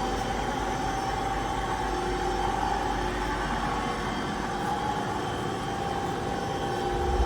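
DoAll 13-inch engine lathe running under power, a steady mechanical hum with a constant whine, and a low rumble coming in near the end.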